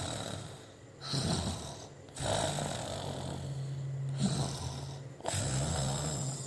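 Snoring: four drawn-out snores one after another, the third a long one of about three seconds with a steady low drone.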